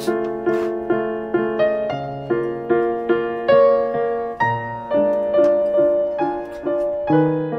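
Background piano music: a melody of evenly spaced single notes, each struck and left to ring out.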